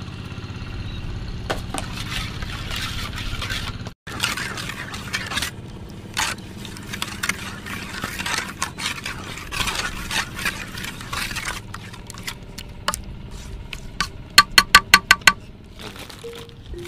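Sambal being stirred: a utensil scraping and clinking against its bowl in irregular strokes, then a quick run of about seven ringing taps near the end.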